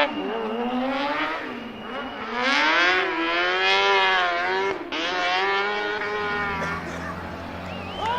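Rally car engine running hard, its pitch climbing and dropping repeatedly as it revs through the gears. There is a sharp break in the sound about five seconds in, and the engine falls away near the end.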